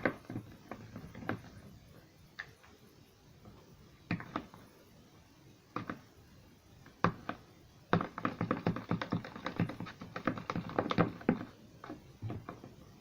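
Freshly activated homemade slime being mixed and worked in a bowl: irregular taps and clicks, scattered at first, then a quick run of them in the second half.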